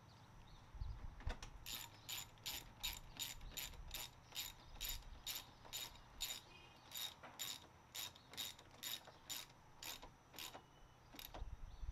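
Hand socket ratchet clicking in quick back-and-forth strokes, about two to three a second, as fasteners are run back in. It pauses about nine and a half seconds in, then gives a couple more strokes near the end.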